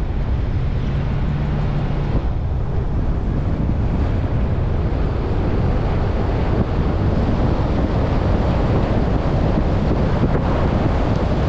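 Wind rushing over the microphone of a camera mounted on a moving vehicle, mixed with road and tyre noise. It runs steadily and grows a little louder after the first few seconds.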